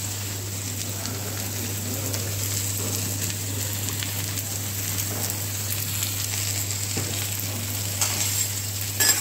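Shredded cabbage and vegetables sizzling on a hot flat-top steel griddle, with light scrapes and taps of a metal spatula. A couple of sharper clacks come near the end.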